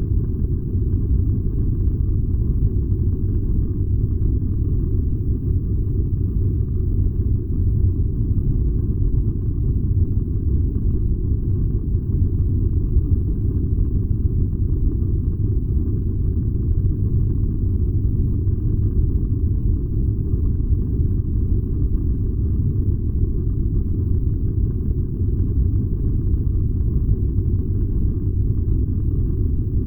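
A furnace running with a steady, deep rumble that does not change.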